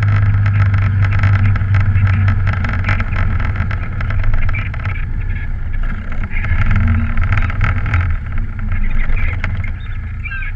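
ATV (quad bike) engine running as it is ridden along a dirt track, a steady low engine note whose pitch shifts a little in the middle and which eases off near the end.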